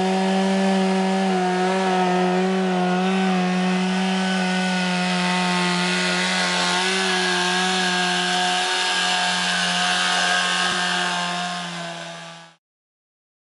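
Two-stroke chainsaw engine running steadily at speed, driving an outboard boat-motor attachment. Near the end it fades out and cuts off.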